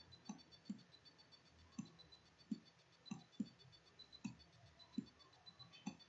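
Near silence in a small room, broken by about nine faint, irregularly spaced clicks.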